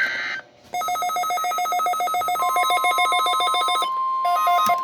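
Weather alert radio receivers going off: a rapid pulsing electronic ring starts just under a second in, and a steady high tone joins it about halfway through, typical of the NOAA Weather Radio 1050 Hz warning alarm. The ringing stops briefly and comes back in a short burst near the end while the steady tone holds.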